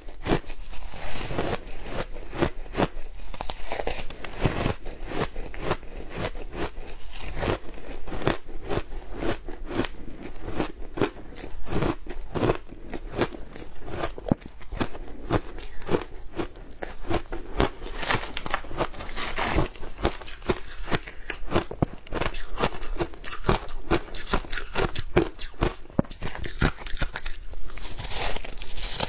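Shaved ice dusted with matcha and milk powder being bitten and chewed: a dense, continuous run of crisp crunches.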